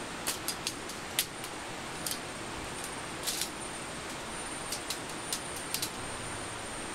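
Shock-corded tent pole sections clicking and clacking together as they are unfolded and joined, about a dozen short sharp clicks. Behind them is a steady rush of river and forest ambience with a thin, high, steady whine.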